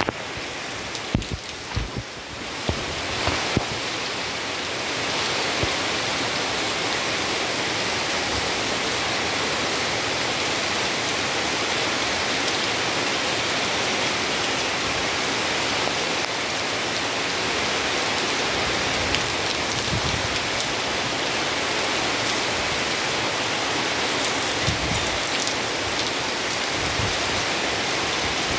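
Heavy rain falling steadily, a dense even hiss of drops on roofs, leaves and wet ground. There are a few soft low knocks in the first few seconds.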